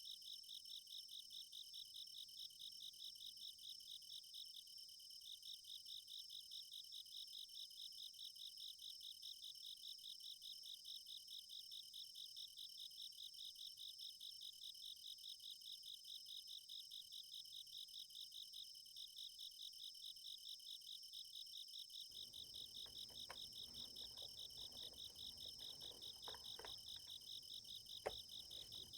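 Summer-night insects chirping in a steady, rapid pulse, about five chirps a second. Over the last several seconds a few scattered key clicks from a Niz Plum x108 electrostatic capacitive keyboard come in, the sharpest near the end.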